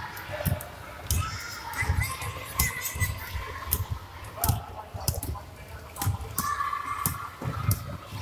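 Basketballs thudding irregularly on a wooden gym floor, with sharp clicks and distant children's voices in a large echoing hall.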